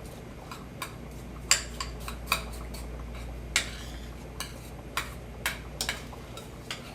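Spoon clinking and scraping against the cookware while sour cream is worked into cooked macaroni noodles: irregular sharp knocks and clinks, the loudest about one and a half seconds in.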